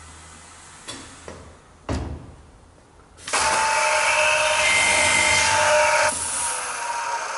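AYEN DB 1000 multi-spindle dowel boring machine: a few clicks and a thump about two seconds in, then a bit past three seconds it starts up with a loud steady whir as the row of drill bits bores into the board, dropping to a quieter steady run just after six seconds.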